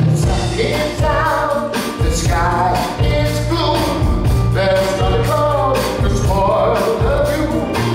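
A man singing a song over band backing with a steady drum beat.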